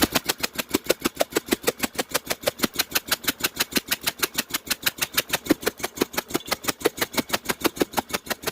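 1982 Yamaha Virago V-twin engine running on one cylinder, with its spark plug lead pulled off the other cylinder for a spark test. It makes a steady, even putt-putt of about eight or nine firing pulses a second.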